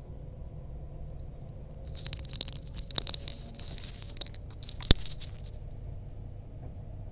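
Steady low rumble inside a moving Queensland Tilt Train carriage. From about two seconds in come a few seconds of close crackling and crunching, ending in one sharp click.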